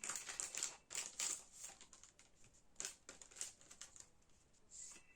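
Crinkling and rustling of album packaging being handled and opened: a quick run of crackles in the first second and a half, then scattered ones.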